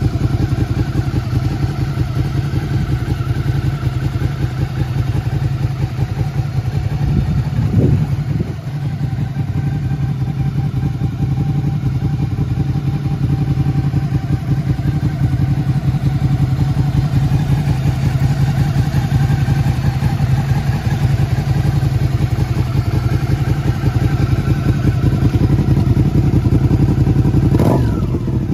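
A 2021 Suzuki SV650X's V-twin engine idling steadily through an aftermarket stainless megaphone-style muffler. It is blipped briefly about eight seconds in, and revs up again near the end.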